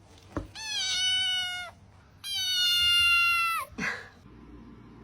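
Cat meowing twice, two long, drawn-out meows of a second or more each that drop in pitch at the end.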